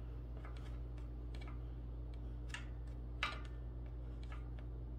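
Hand screwdriver turning a screw into a metal desk frame: faint, irregular clicks and ticks, with two sharper clicks near the middle, over a steady low hum.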